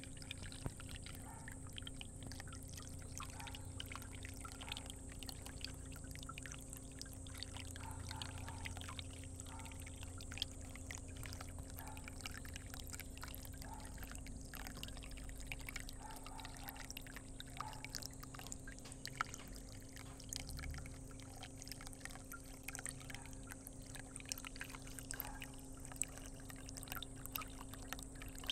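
Water running into a small container pond, splashing and trickling steadily, with a faint steady hum underneath.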